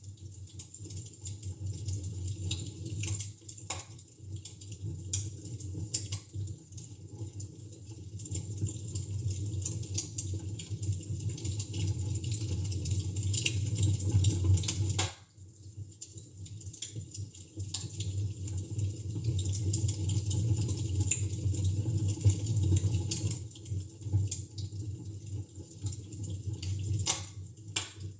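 Wood fire in a fireplace crackling, with irregular sharp pops and snaps over a steady low rumble. About fifteen seconds in the sound cuts out for a moment and then carries on as before.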